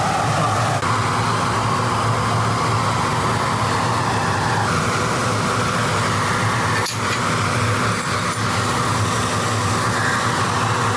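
AC TIG welding arc on aluminium, a steady buzzing hiss whose tone shifts slightly a couple of times, with a brief break about seven seconds in.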